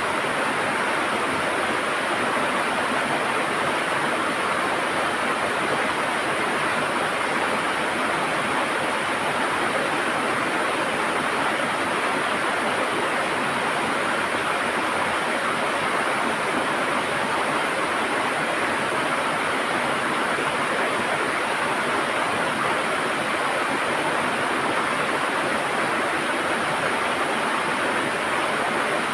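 River water rushing and gurgling steadily over rocks, an even noise with no breaks.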